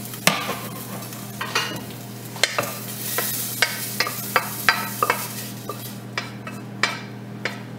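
A wooden spatula scraping and tapping against a stainless steel saucepan as sautéed vegetables are scraped out, with the hot vegetables sizzling. The sharp taps come irregularly.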